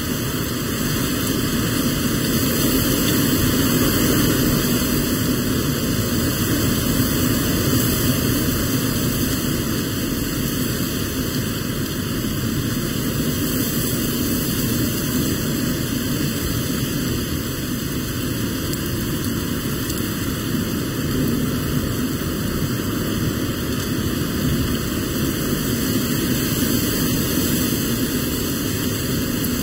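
Severe thunderstorm wind blowing hard through trees, with heavy rain falling: a loud, steady rushing noise that does not let up.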